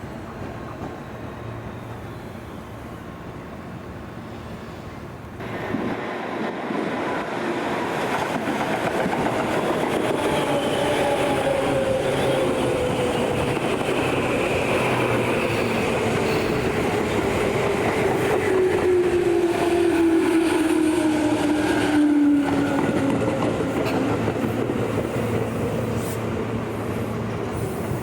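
Tobu Tojo Line electric commuter train passing slowly, its traction motor whine gliding steadily down in pitch as it slows, over the rumble and clack of the wheels on the rails.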